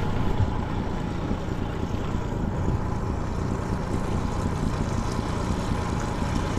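Honda 30 hp four-stroke tiller outboard running steadily at trolling speed.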